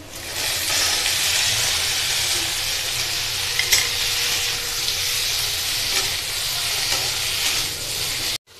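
Steamed potato chunks going into hot oil in a wok and sizzling loudly, stirred with a flat metal spatula that scrapes the pan a few times. The sizzle starts sharply as the potatoes go in and cuts off suddenly near the end.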